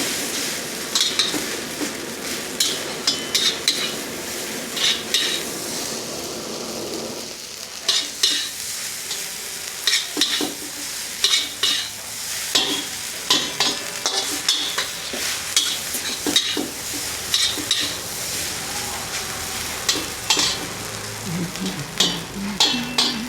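Food sizzling in a street-vendor's wok, a steady frying hiss, with a metal ladle clanking and scraping against the wok many times as the cook stirs and tosses the food.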